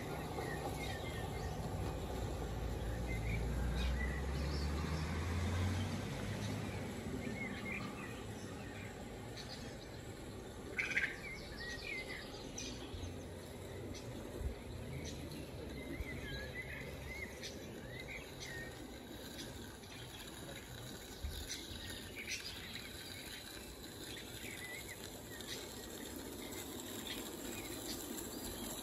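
Small birds chirping in short, scattered calls over steady low outdoor background noise, with a couple of brief clicks partway through.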